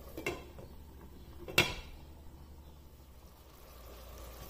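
Glass pot lid with a steel rim knocking against a cooking pot: a light clink just after the start, then about a second and a half in a single sharp clack with a short ring.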